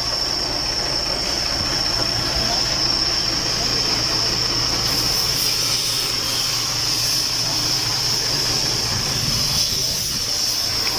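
Diesel engine of a Mercedes-Benz 1823 boom truck running steadily, with a steady high-pitched whine over a low drone.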